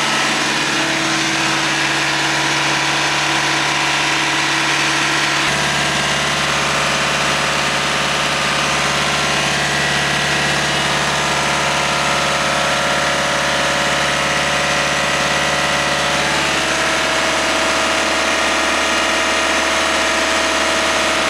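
Center-pivot irrigation pump unit running steadily with a loud humming, vibrating drone. The owner suspects the hum means the hydraulic pump is working under extreme pressure after a burst hydraulic line was repaired.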